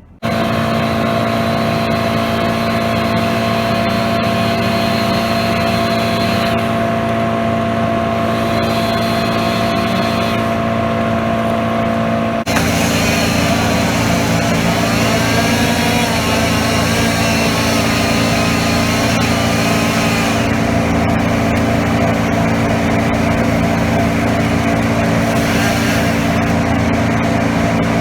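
A machine engine running steadily at a constant speed. It changes abruptly about twelve seconds in to a similar steady engine sound.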